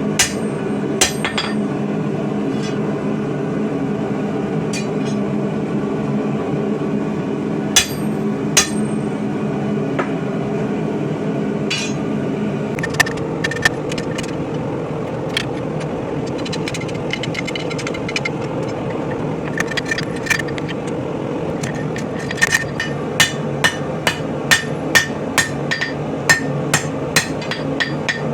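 Hammer blows on hot coil-spring steel on an anvil, forging a sword blade by hand. A few scattered strikes come first, then from about two-thirds of the way in a steady run of blows, about two a second, over a constant background hum.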